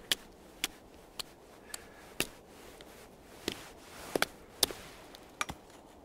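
A knife hacking a chaga conk off a birch trunk: short, sharp knocks at irregular intervals, about ten in all, with a quick double knock a little past the middle.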